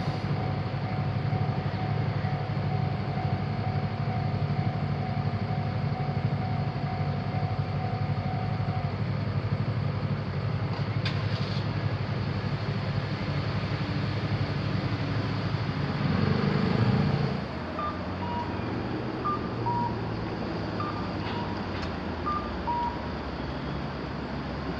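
Road vehicles at a railway level crossing: an engine running steadily, swelling briefly as a vehicle moves off, then quieter traffic. Near the end, a series of short electronic beeps alternating between two pitches.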